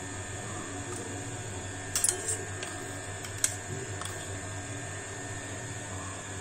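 A few light clicks and taps over a steady low room hum: a small cluster about two seconds in, then a single sharper click about a second and a half later.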